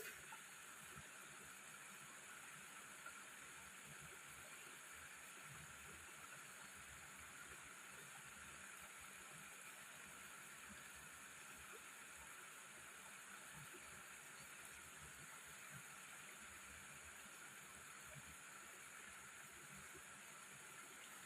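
Near silence: a faint, steady outdoor hiss with a few soft low knocks and a click at the very start.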